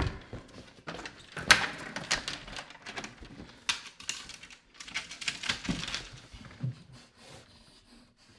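A door being locked in a hurry: a quick, irregular run of metallic clicks, knocks and rattles as the lock hardware and doorknob are worked, dying away near the end.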